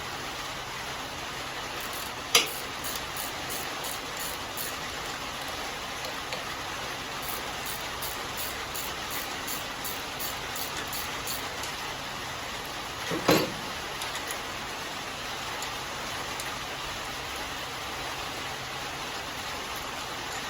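Socket ratchet clicking about twice a second as the carburetor mounting nuts are worked off a Briggs & Stratton mower engine, with a sharp clink a couple of seconds in and a louder knock about two-thirds of the way through, over a steady hiss.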